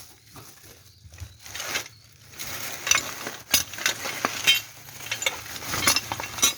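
Rummaging through the loose parts packed with a motorcycle engine: irregular rustling with clicks, knocks and small clinks, busier in the second half.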